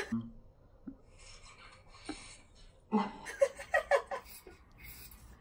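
A woman giggling in several short bursts about three seconds in, with a short breathy sound just before.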